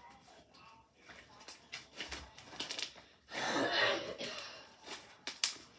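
A shirt being crumpled and handled close to the phone's microphone: scattered rustles, with a louder stretch of rustling about three and a half seconds in and a sharp click near the end.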